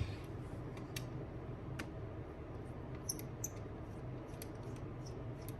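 Faint, sharp ticks and clicks of a small precision Phillips screwdriver turning out a tiny screw from an iPhone 7 Plus Taptic Engine, scattered irregularly over a steady low background hum.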